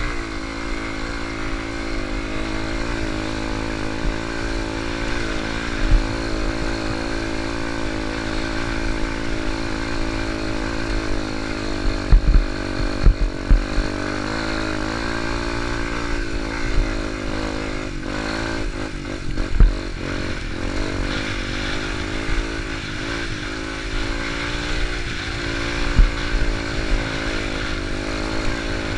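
Yamaha enduro motorcycle engine running under constantly changing throttle on a climb, its pitch rising and falling. A few sharp thumps come through about halfway and again later.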